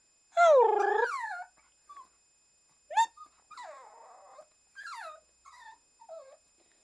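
Shih Tzu whining: one long wavering howl-like whine about half a second in, then a short yip about three seconds in and several softer whimpers. The owner takes it for sadness at not being taken for a walk.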